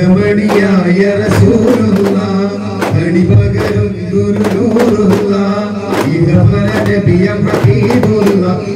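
Duff muttu: a group of daff frame drums struck by hand together in a steady beat, about two strikes a second. The drums play under male voices singing a Malayalam devotional song.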